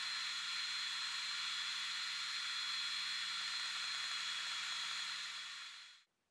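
Creality Falcon2 diode laser engraver running a marking pass: a steady airy hiss from the laser head's fan and air assist, with a thin high whine and a faint low hum. It fades out near the end.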